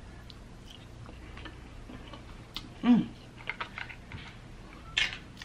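Close mouth sounds of someone eating seafood: soft clicks and smacks of chewing, with a brief hummed 'mm' about three seconds in. A short rustle near the end as food is picked out of the bowl.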